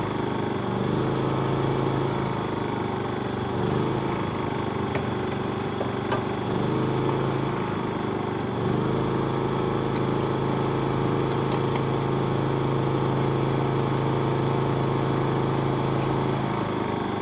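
An engine running steadily, a low, even hum that gets a little stronger about nine seconds in.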